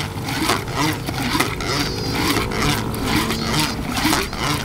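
Background music: a Javanese-language song with a steady drum beat.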